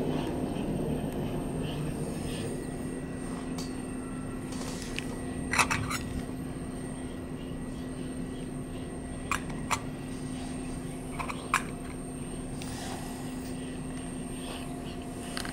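Titanium alcohol stove burning with a steady rush, and several sharp metal clinks about a third of the way in and again around two-thirds of the way through as a metal pot and its lid are handled on the stove.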